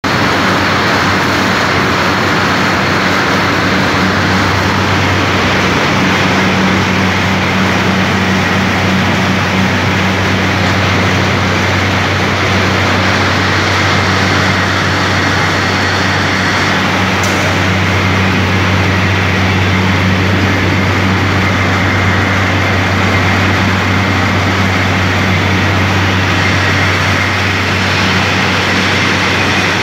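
Peanut cleaning line running: motors, fan and vibrating screens make a loud, steady mechanical hum under an even rushing noise.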